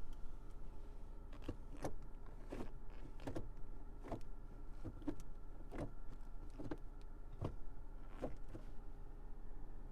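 Car turn-signal indicator ticking steadily, about one click every 0.8 seconds, over a steady low hum from the idling engine.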